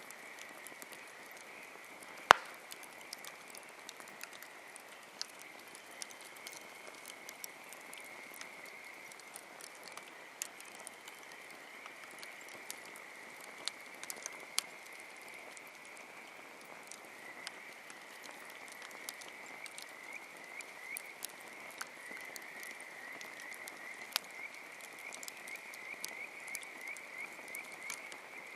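Wood campfire crackling with scattered small pops and one sharp, loud pop about two seconds in, over a steady high-pitched trilling chorus of frogs that becomes more pulsed in the second half.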